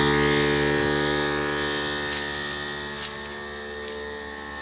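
Harbor Freight 12-volt portable air compressor running steadily, a motor hum at an even pitch as it pumps up a flat tire. It grows quieter from about a second in, and two faint clicks come about two and three seconds in.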